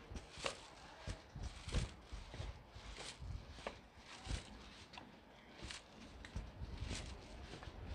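Footsteps of a person walking at a steady pace, about three steps every two seconds.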